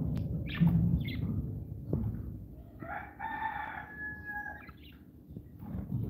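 A rooster crowing once, a long call of about two seconds starting around three seconds in. Before it, a few short sharp chirps from the caged lovebirds over a low rumbling noise.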